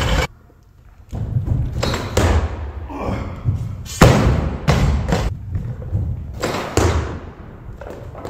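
Barbell and weight plates knocking and clanking on a wooden lifting platform as the bar is handled and reloaded, a series of separate thuds and knocks, the loudest about four seconds in.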